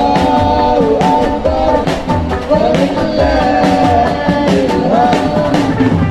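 Live band playing a religious song: a singer's melody over drum beats and guitar.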